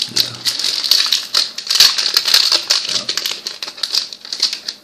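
Foil booster pack wrapper crinkling and crackling in the hands, a dense run of rapid crackles that thins out near the end.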